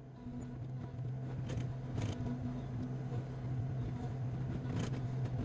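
Excavator's diesel engine running under load as it works, growing louder about half a second in, with a few sharp knocks and crunches from the wall being pushed down.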